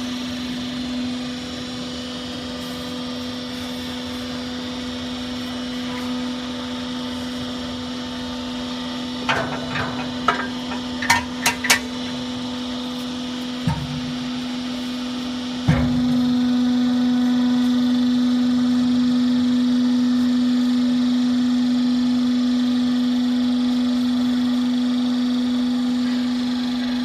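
Hydraulic cardboard baler's electric motor and pump running with a steady hum. A quick series of metallic clanks comes about 10 seconds in, then a clunk at about 16 seconds, after which the hum gets louder and stays so, as the pump works under heavier load.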